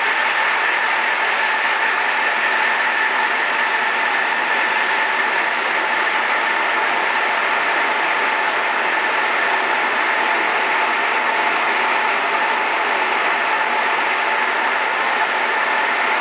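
A hall full of circular looms weaving polypropylene bag fabric, running together: a loud, steady mechanical din with a constant high whine.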